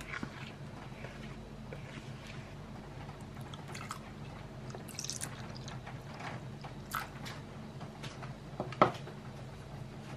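Almond milk being poured into a glass bowl of peanut butter: soft splashing and dripping with a few small clicks, over a low steady hum. A single sharp knock sounds near the end.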